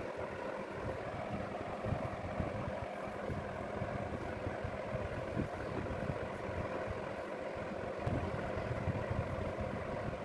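Steady background hum and low rumble, like a running machine, with no clear changes.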